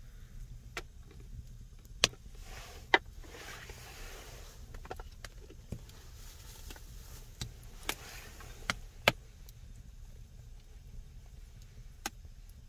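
Handling at a wooden cutting board while raw meat slices are laid out and a cleaver and plastic bottle are set down: soft rustling broken by about six sharp knocks and clicks, two close together early and several more around the middle, over a low steady rumble.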